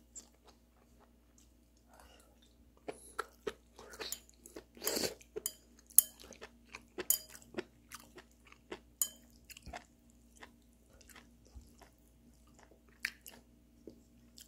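A person chewing beef tripe up close: wet, crunchy chewing with sharp mouth clicks, densest between about three and ten seconds in, then trailing off into occasional chews.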